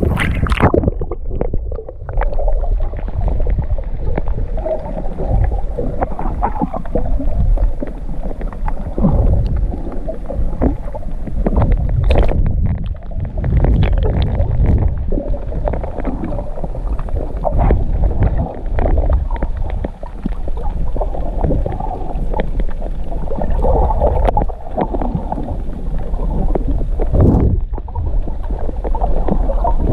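Muffled underwater sound from a camera held below the sea surface: a steady low rumble and gurgling of water moving around the camera, with a few brief sharp clicks. The high end drops away just after the start as the camera goes under.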